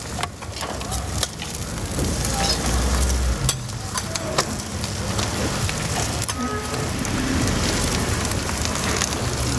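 Food sizzling as it fries on a street stall's hot pan, with occasional sharp clicks.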